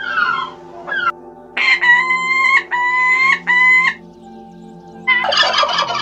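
Wild turkey gobbling: one rapid, rattling gobble about a second long, starting about five seconds in. Before it come three long, even-pitched calls.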